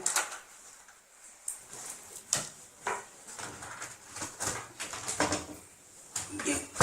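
Scattered sharp clicks and light knocks, about half a dozen, of tools and metal parts being handled while the four nuts holding an LCD TV's panel are taken off.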